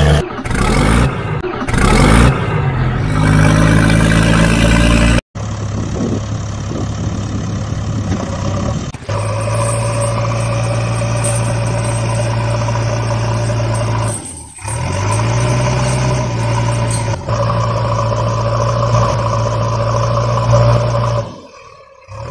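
Truck engine sound effect running and revving, with pitch rising and falling in the first few seconds, then running steadily in segments that cut off abruptly several times.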